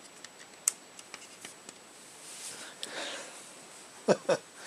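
Light clicks and taps of a plastic model car body being set down and handled on a cutting mat, then a soft rustle as the hands move away. Two short, sharper sounds come close together near the end.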